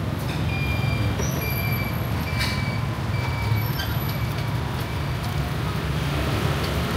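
Steady low rumble of street traffic. Over it come a few short, thin metallic squeaks and a single clink about two and a half seconds in, from a spoon scraping a metal cup and tapping a bowl.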